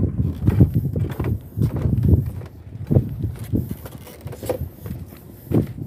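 Footsteps on a bamboo plank platform: irregular thuds, about two a second.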